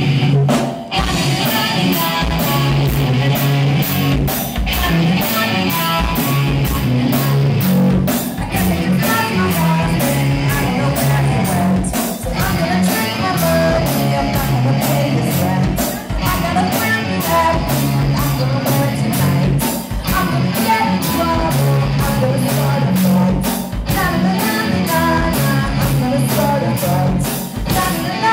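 Live rock band playing a song: a woman sings lead over two electric guitars and a drum kit keeping a steady beat.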